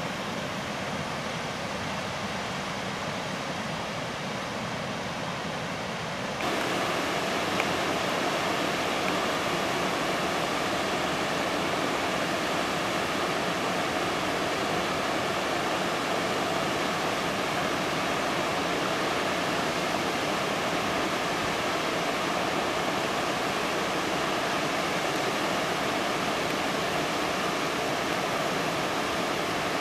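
Flash-flood water rushing across a road through a desert wash, a steady noise that suddenly gets louder and brighter about six seconds in.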